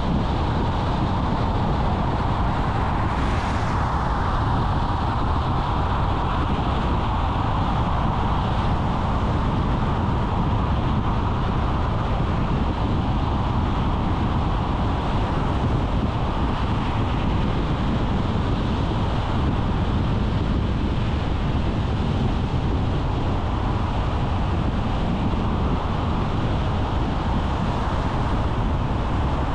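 Car driving along a road: steady engine and tyre noise, with a brief louder hiss about three seconds in.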